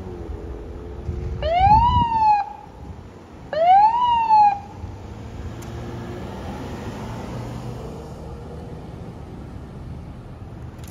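Emergency vehicle siren giving two short whoops about two seconds apart, each rising quickly in pitch and then dipping. Steady vehicle rumble runs underneath.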